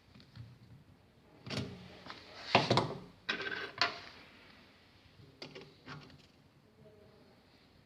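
Irregular clicks, knocks and short scrapes from a nipple drinker and its pipe being handled and fitted by hand, loudest a few seconds in and fainter near the end.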